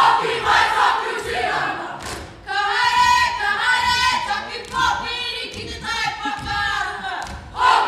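A group of performers shouting in chorus, then singing a phrase together from about two and a half seconds in, with group shouting returning near the end.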